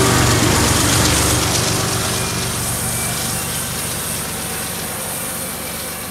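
Stainless-steel passenger cars of a passenger train rolling past at speed, a steady rush of wheels on the rails that slowly gets quieter, while the low drone of the diesel locomotives that have just gone by fades out in the first second.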